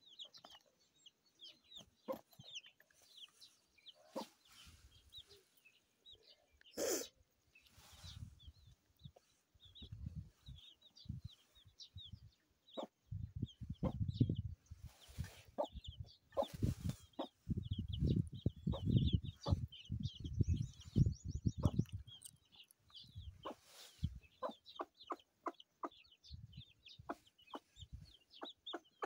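Chickens clucking and chirping in the background: many short high calls throughout, with one louder call about seven seconds in. Low thumping and rustling fills the middle stretch, from about thirteen to twenty-two seconds in.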